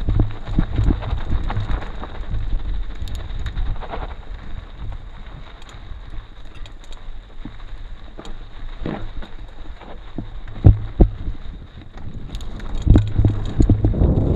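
Wind buffeting the microphone in a low rumble, with scattered sharp knocks and rattles, the loudest pair a little past the middle.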